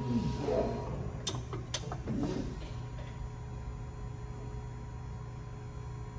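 PRIMELINE 200-ton CNC hydraulic press brake running with a steady hum from its hydraulic power unit. In the first couple of seconds a short whine rises and falls twice, with two sharp clicks in between.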